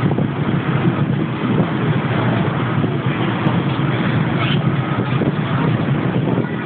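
Steady wind rushing over the microphone high up on an open, mesh-caged observation deck, a constant low rumble with no pitch.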